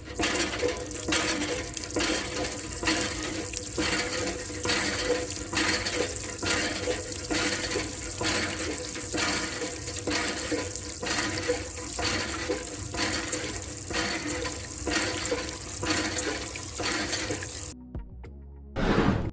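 Water splashing out of a miniature hand pump, gushing in regular pulses with each stroke, then stopping abruptly near the end.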